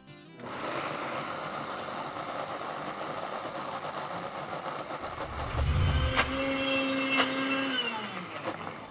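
Countertop blender motor running, blending cottage cheese and protein powder into a thick mousse. It starts about half a second in and runs steadily. Around six seconds there is a low thud and a couple of sharp clicks, then a steadier hum that drops in pitch and stops near the end as the motor spins down.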